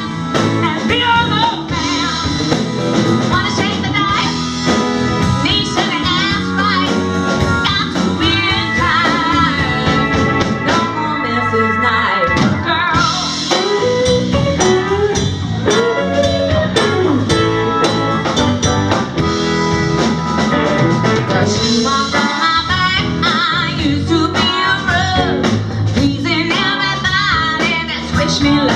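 Live band playing a bluesy song, with sung vocals over guitar and band accompaniment.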